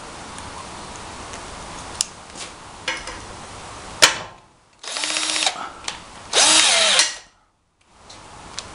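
Cordless drill driving a pop-rivet adapter, running in two short bursts with a low motor whine, after a few sharp clicks of the tool being handled.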